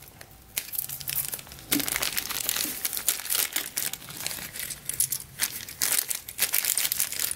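Thin clear plastic toy wrapping crinkling and crackling irregularly as it is opened by hand and the small toy pieces are taken out.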